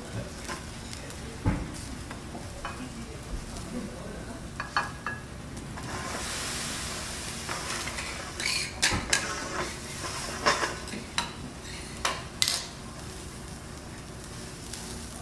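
Food sizzling on a steel teppanyaki griddle, the sizzle swelling about six seconds in, with a string of sharp metal clicks and taps from utensils and the steel dome cover on the hot plate.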